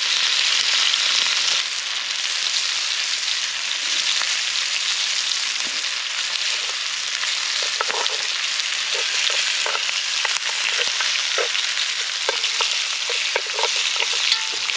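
Moose osso buco pieces searing in a very hot frying pan, giving a loud, steady sizzle. From about eight seconds in, short squeaky spits pop through the sizzle.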